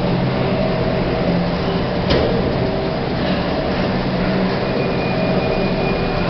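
Otis Gen 2 lift car travelling: a steady low hum of the lift's motor and ride, with a single click about two seconds in and a faint high whine joining past the middle.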